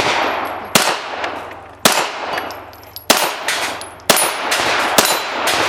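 9mm pistol fired in a steady string, about one shot a second, five or six shots in all, each with a long echo. Faint high metallic rings follow several shots, typical of steel targets being hit.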